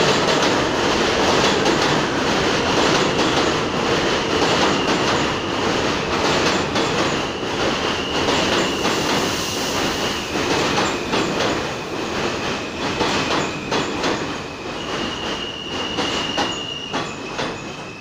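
New York City subway train pulling into a station and braking, with wheels clacking over rail joints and a high steady wheel squeal setting in a few seconds in. It grows quieter as the train slows toward a stop.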